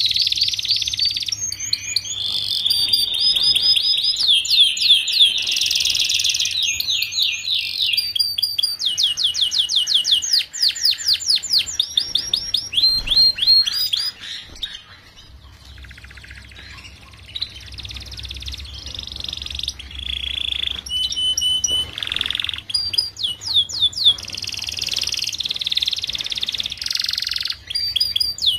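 Domestic canary singing: fast rolling trills of rapidly repeated high notes, one phrase after another. The song drops to a quieter, sparser stretch about halfway through, then picks up again.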